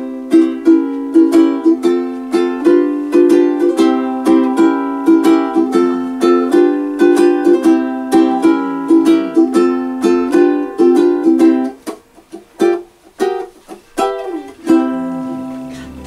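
Solo ukulele played fast: quick repeated plucked notes over a sustained note. About twelve seconds in it breaks off into a few scattered notes with short pauses, then the picking picks up again just before the end.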